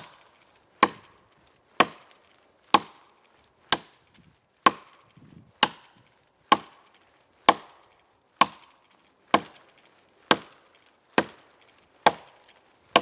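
Axe chopping into a thick oak log, cutting a V-notch to buck it: a steady run of sharp blows, about one a second.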